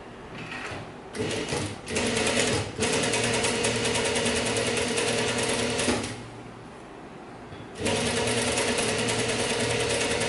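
Table-mounted sewing machine stitching through layers of cotton fabric. It starts with a couple of short bursts, then runs steadily at a fast, even stitch rate for about three seconds, stops for under two seconds, and runs again for about two and a half seconds.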